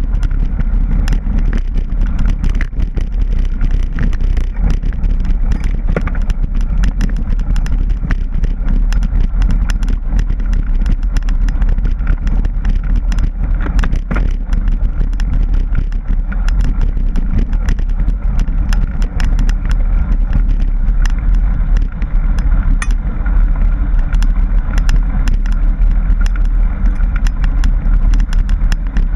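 Mountain bike riding over a rough dirt trail, heard from a camera mounted on the bike or rider: a steady low rumble of wind and rolling tyres with constant small clicks and rattles as the bike jolts over rocks.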